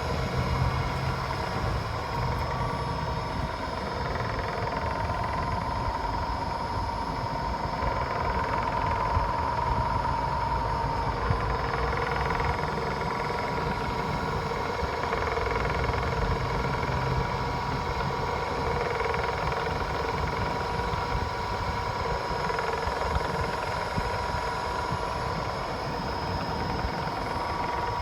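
Supermax YCM-18 CNC vertical mill running, a steady machine hum with a high whine that shifts slightly in pitch about eleven seconds in.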